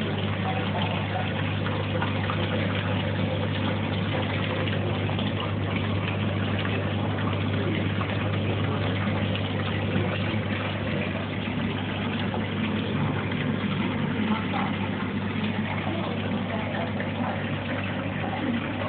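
Aquarium filter pump humming steadily, with the hiss and wash of moving water.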